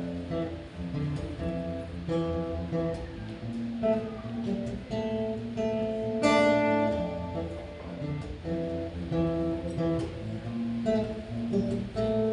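Acoustic guitar playing an instrumental passage of a worship song, chords ringing and changing every second or so, with a sharp, bright strum about six seconds in.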